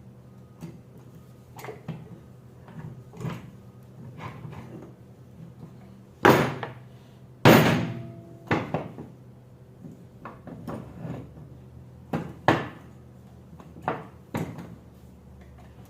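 Tools and parts being handled while a Delco Remy starter is taken off: a series of sharp knocks and clanks, the two loudest about six and seven and a half seconds in, over a steady low hum.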